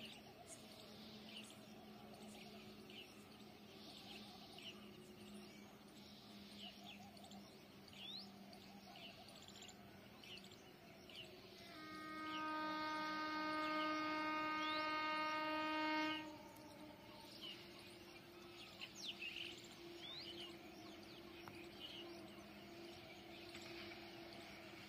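Small birds chirping, and about halfway through a distant train horn sounds one long steady blast of about four seconds.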